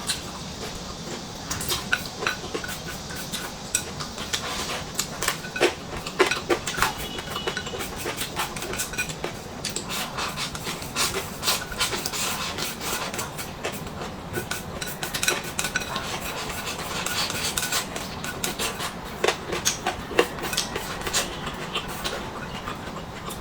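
Close-miked eating from a bowl of noodles: utensils clicking and scraping against the bowl, with many irregular sharp clicks throughout.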